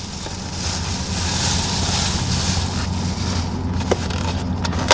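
Steady low hum of a car idling, heard from inside the cabin, with a hiss that swells in the middle and two light clicks near the end.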